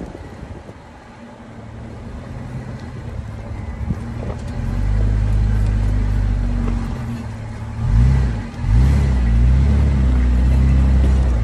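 Off-road truck engine climbing a steep rocky trail: it runs low for the first few seconds, then pulls harder from about four seconds in. It revs up and down twice near eight seconds, then holds a steady, loud pull under load.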